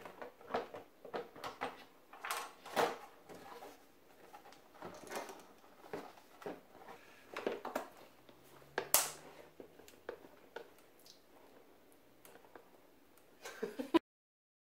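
Irregular plastic knocks, clicks and scrapes of a blue plastic electrical gang box being handled and fastened inside a clear plastic storage tub, the sharpest knock about nine seconds in. The sound cuts off abruptly near the end.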